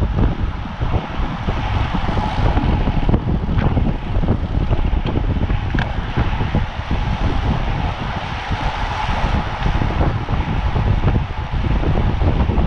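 Wind buffeting the microphone and road rumble from a racing bicycle ridden at speed, with a faint steady hum underneath.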